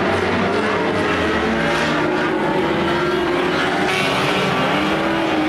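Several small-engined banger racing cars revving at once, their engine notes rising and falling over one another as they push and jostle.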